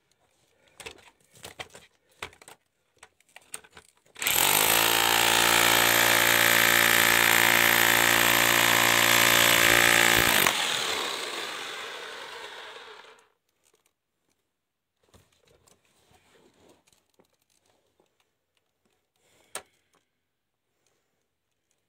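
A jackhammer breaking rock runs loud and steady for about six seconds, then cuts back and fades out over the next three. It is preceded and followed by scattered knocks and scrapes of rock and tools.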